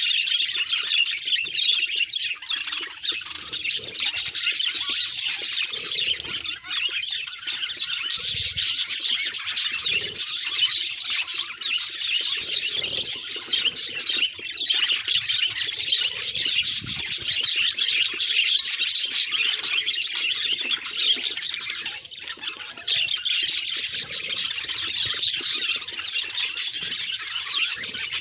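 Budgerigars chattering and chirping without a break, a dense run of rapid high-pitched chirps and squawks.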